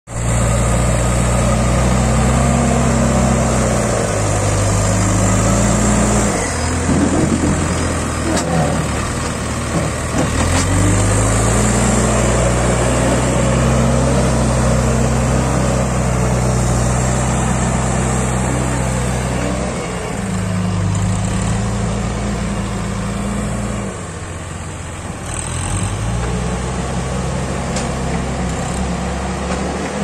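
Case backhoe loader's diesel engine running while it works the front loader bucket. Its speed drops and picks up again several times as the load comes on and off.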